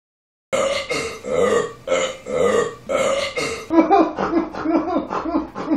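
A person belching four times in a row, each burp long and drawn out, followed by a run of short, choppy vocal sounds.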